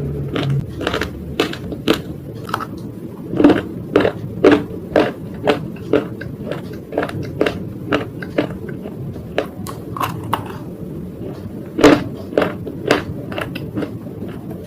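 Crunching bites of a hard, brittle material: sharp, irregular crunches, one to two a second, the loudest a few seconds in and again near the end, over a steady low background hum.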